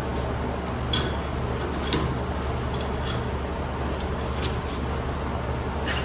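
Light metal clinks, a few scattered taps about a second apart, as steel spacers and cones are slid onto a wheel balancer's shaft, over a steady low shop hum.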